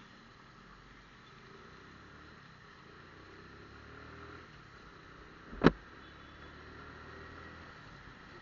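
Faint motorcycle riding noise on a wet road: engine running and tyre hiss, with one sharp knock about five and a half seconds in.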